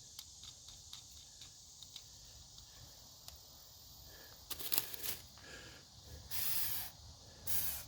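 Small clicks and ticks of metal parts being handled and threaded together as a new tire valve stem is screwed onto the replacement kit's insertion tool, with a louder cluster of clicks about five seconds in. Near the end come two short hissing bursts.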